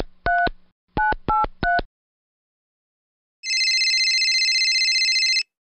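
Mobile phone keypad tones as a number is dialled: six short beeps in two quick groups. After a pause comes about two seconds of a fast-fluttering ringback tone while the call rings through.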